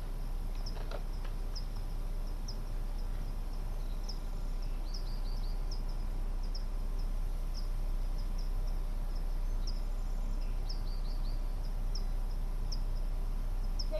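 Outdoor ambience: short high chirps from a small bird or insect repeat about once or twice a second, some in quick falling runs of three or four, over a steady low rumble.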